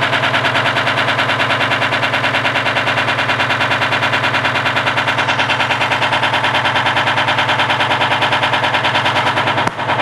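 Front-loading washing machine running hard, with a fast, even knocking several times a second over a steady motor hum. The sound breaks off briefly near the end.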